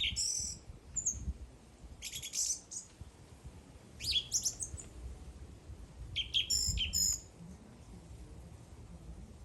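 A bird singing in short bursts of quick, high chirps, about one burst every two seconds, with pauses between.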